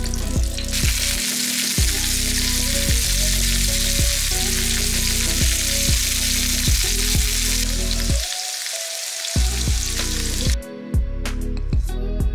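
A bone-in chop and vegetables sizzling in hot oil in a frying pan, a steady hiss that cuts off suddenly near the end. Background music with plucked notes plays throughout.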